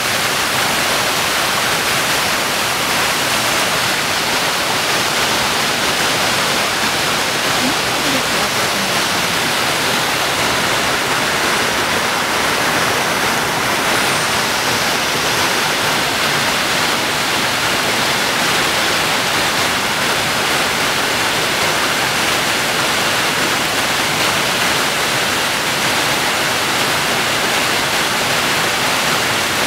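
Creek cascading over rocks below a waterfall: a steady, even rush of running water.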